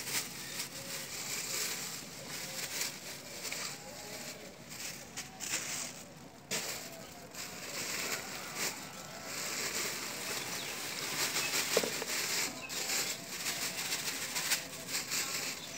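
Thin plastic carry bag rustling and crinkling on and off as it is shaken and kitchen scraps are tipped out of it into a compost box.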